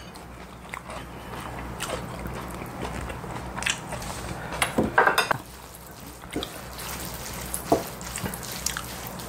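Eating sounds: chopsticks and spoons clicking against ceramic bowls as spicy bibimbap is stirred, with close-miked chewing of raw fish, in scattered short clicks and a louder burst of clatter about five seconds in, over a low steady hum.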